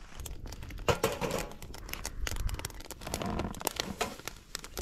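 Wood fire crackling and popping in a portable camp stove, a run of irregular sharp crackles.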